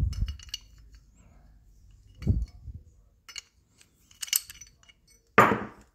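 Small metal clicks and clinks, with a few dull knocks, as a brake lever is worked into a motorcycle front master cylinder housing to line up its pivot hole. A louder noise comes near the end.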